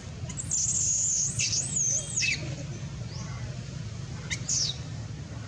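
High-pitched animal squeals: one long call that wavers up and down in pitch for nearly two seconds, then a short falling squeal about four seconds in, over a steady low hum.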